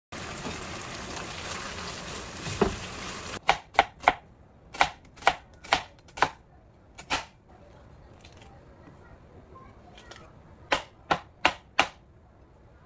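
A steady hiss for about three seconds, then a kitchen knife chopping on a cutting board: eight irregular strokes, a pause, then four quick strokes near the end.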